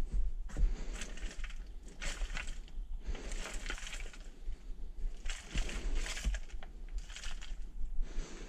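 A shovel scraping and spreading loose potting soil over plastic seedling trays: a series of rustling, scraping strokes about a second apart, with a few soft knocks.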